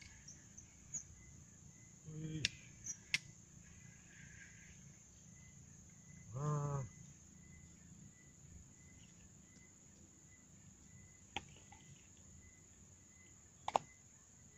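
Insects calling: a steady high-pitched drone with faint chirps repeating about twice a second. A man makes a short vocal sound about six seconds in, and a few sharp clicks stand out, the loudest near the end.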